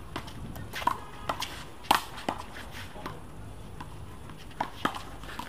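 The end of a one-wall handball rally: sharp slaps of the small rubber ball hit by hand and smacking off the concrete wall and court, the loudest a little under two seconds in, with footsteps on the court.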